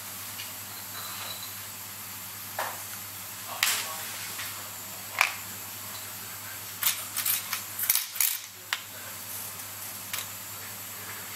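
Small metal clicks and taps of watchmaker's tweezers and tools on a Seiko 7S26B watch movement and its holder during assembly. The taps are scattered at first, then come in a quick cluster in the second half, over a steady low hum.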